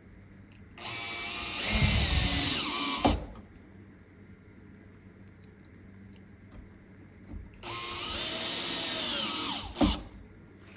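Power drill driving in the two screws that hold a door latch, one run after the other. Each run lasts about two seconds, with the motor's pitch sagging as the screw seats and a sharp click as it stops.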